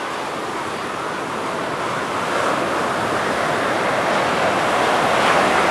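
Surf washing on the beach with wind, an even rushing noise that slowly grows louder.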